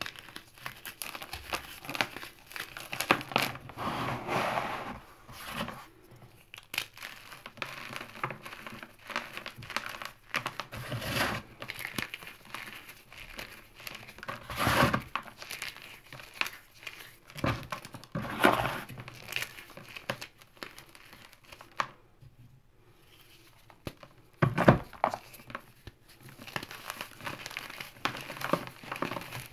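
Fingers crushing crispy chunks of gym chalk and cornstarch, a dense dry crunching and crackling with louder crushes every few seconds as chunks break apart, and a short quieter lull about two thirds of the way through.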